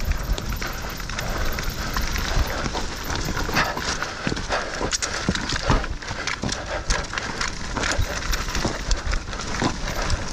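Mountain bike riding fast down a dirt woodland trail: a continuous rush of tyres and wind on the microphone, with frequent knocks and rattles from the bike over the ground.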